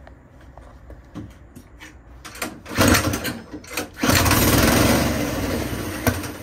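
Pull-starting a small go-kart petrol engine converted to hydrogen, fed a petrol and reduced-hydrogen mix. A first pull about two and a half seconds in gives a brief sputter. A second pull at about four seconds catches, and the engine runs loudly for about two seconds, then dies down near the end.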